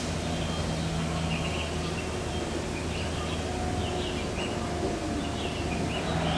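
Outdoor ambience: a steady low machine hum, with birds chirping intermittently over it.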